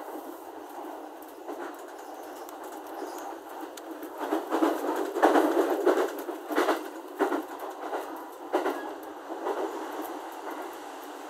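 E231 series electric train running, heard from inside the carriage as a steady rumble. About four seconds in it grows louder for a few seconds with rapid clicks and knocks, as the side of another train rushes past close alongside.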